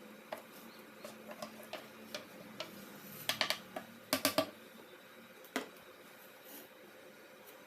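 A series of short clicks and light taps: several faint ones, then two louder quick clusters of clicks in the middle and one more sharp click a second later.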